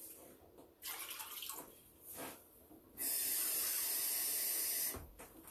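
Kitchen tap water running into a cup at the sink: a brief, uneven run about a second in, then a steady stream for about two seconds that cuts off sharply when the tap is shut.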